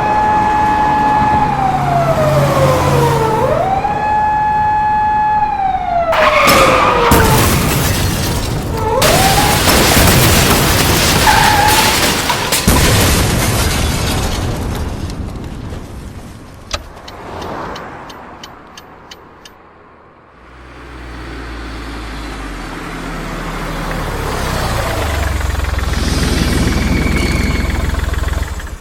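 A police car siren wails in slow rising and falling glides for about six seconds. It gives way to loud crashing and banging, and later to a low rumble that grows louder toward the end.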